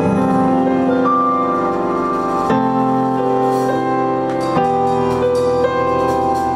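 Instrumental praise music on a keyboard: held chords that change about every two seconds.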